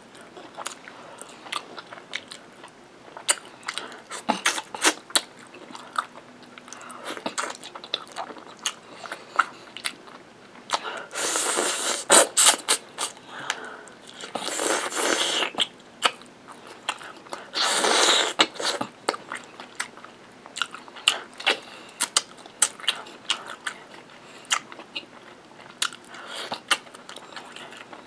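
Close-miked eating: biting into and chewing curried meat by hand, with many short wet clicks and smacks. Three louder stretches of a second or two come near the middle.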